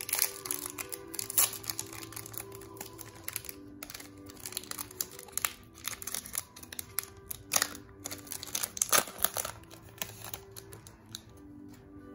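A Panini Prizm football card pack's wrapper being torn open and crinkled by hand, in sharp crackling bursts. The bursts are densest right at the start, again about five seconds in and around eight to nine seconds. Background music plays underneath.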